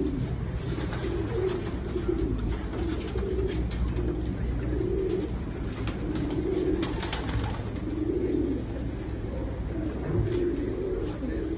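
A loft of racing pigeons cooing, with soft low coos overlapping about once a second over a steady low rumble. A few short clicks come about seven seconds in.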